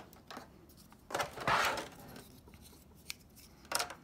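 Hard plastic clicks and a scraping rub as the PS4 Pro's plastic hard-drive bay cover is handled against the console casing. The scrape, about a second in and lasting most of a second, is the loudest sound; a few light clicks come before and after it.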